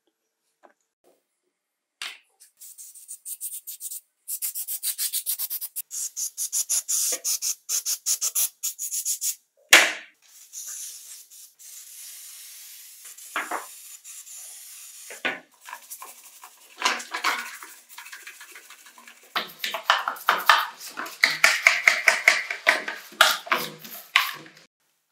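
Rapid scrubbing strokes for several seconds, then an aerosol cleaner hissing steadily for about five seconds. This is followed by brisk scrubbing of a chainsaw's yellow housing with a scouring pad in water.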